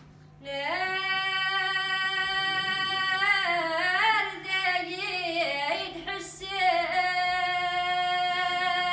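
A woman singing unaccompanied, one voice holding long notes with wavering ornamented turns in the middle; it starts about half a second in and ends on a long held note.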